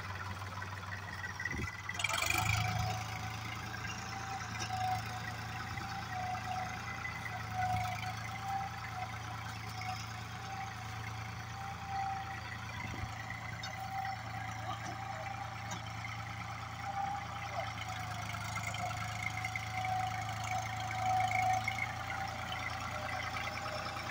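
New Holland 3600-2 tractor's three-cylinder diesel engine running steadily under load, towing a heavily loaded trailer over rough field ground. A short knock sounds about two seconds in.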